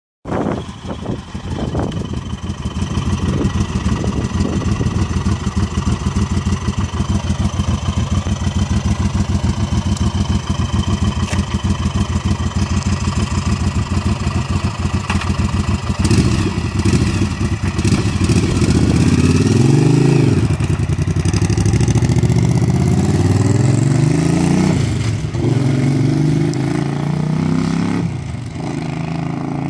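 1985 Yamaha Virago XV700's V-twin engine idling with an even beat, then revving and pulling away about halfway through. It climbs in pitch through several gear changes and fades as the bike rides off near the end.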